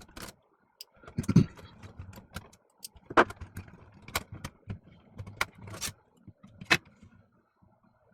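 Small sharp clicks and taps of tools and plastic parts as the tape-door cover of a Sony 8mm camcorder is worked off, irregular, with louder knocks about a second in and near the end.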